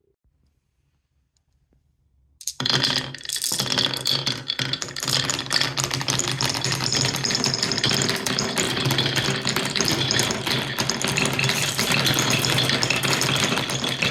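Near silence, then about two and a half seconds in, a dense, continuous clatter starts: many marbles rolling and clicking down Cuboro wooden-block stairs and wave slopes.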